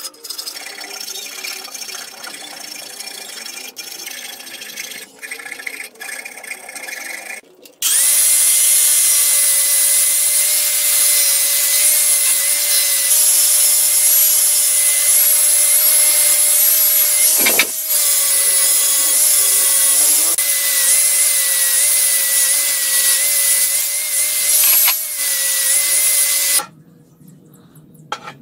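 A hand file rasping on a steel part held in a vise. About eight seconds in, an angle grinder with an abrasive disc starts abruptly and runs at a steady high whine, sanding the face of a thick steel plate, until it stops near the end.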